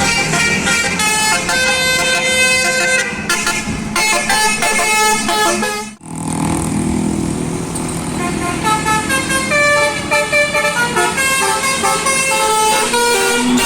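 Bus 'telolet' multi-tone air horns playing rapid melodic sequences of stepping notes. The horns cut off sharply about six seconds in, then start up again with another tune.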